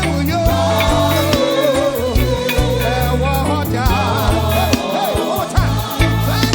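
Gospel praise music: a live band with bass and drums under a wavering sung or played melody line.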